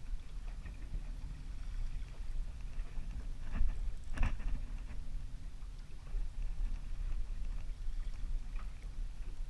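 Water and wind around a small fishing boat, making a steady, uneven low rumble, with two sharp knocks about three and a half and four seconds in.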